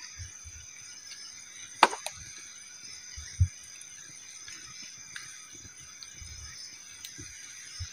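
Forest ambience: a steady high drone of insects, broken by a sharp crack about two seconds in, a smaller one just after, and a low knock a second later.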